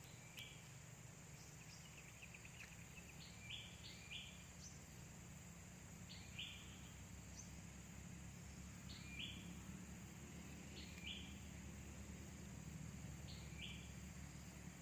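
A bird faintly calling a short two-note call over and over, about every two to three seconds, over a steady low hum.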